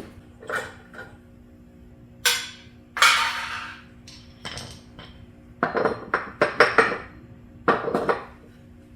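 Metal tools and sockets clinking and clattering in a string of separate knocks, with a longer rattling clatter about three seconds in and a quick run of clanks in the second half.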